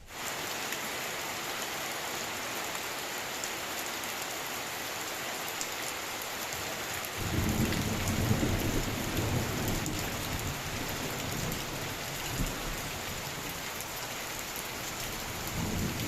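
Heavy rain falling steadily, with a low rumble of thunder swelling about seven seconds in and lasting several seconds, and a shorter rumble near the end.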